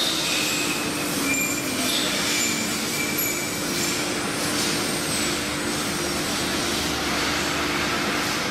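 Wood CNC router running as it engraves a door panel: a steady spindle and cutting noise with a constant hum, and short higher whining tones that come and go as the cut goes on.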